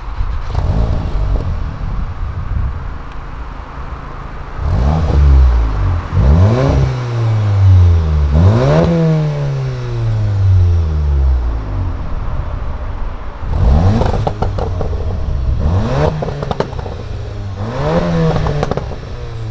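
VW Golf R (Mk7.5) 2.0-litre turbocharged four-cylinder breathing through a Scorpion non-resonated cat-back exhaust, idling and then revved while standing still. It gives three quick blips, settles back to idle for a few seconds, then gives three more. Each blip climbs sharply in pitch and falls back to idle, and the blips are the loudest parts.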